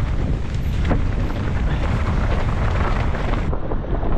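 Wind buffeting the camera microphone over the rumble and rattle of a mountain bike descending a rocky trail at speed, with a few sharp knocks in the first second.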